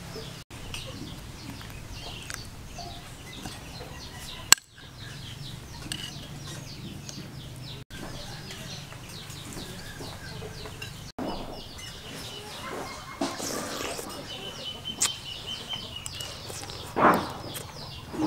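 Farmyard ambience: small birds chirp over and over in short falling notes, with chickens clucking. A single sharp click comes about four and a half seconds in, and a louder call near the end.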